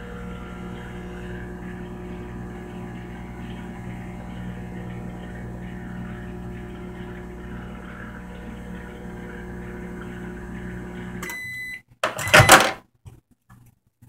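Frigidaire microwave oven running with a steady hum. It stops about eleven seconds in and gives one short beep as the cooking cycle ends. The door is then opened with a loud clack, the loudest sound here.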